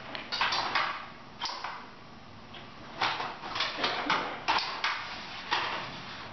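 Packing materials being handled, including a large stiff white board: a string of short knocks, scrapes and rustles, busiest in the second half.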